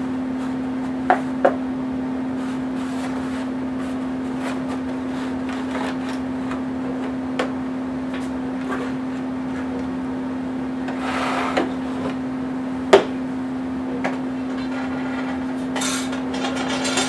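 Hard 3D-printed plastic parts of a model airplane being handled as the wing is taken off its spars and the fuselage is moved. Scattered clicks and knocks, a couple of short stretches of rubbing and one sharper knock about 13 seconds in, over a steady hum.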